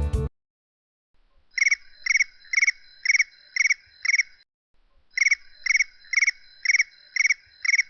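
Animal-like chirping: short trilled chirps about two a second, in two runs of six with a short pause between.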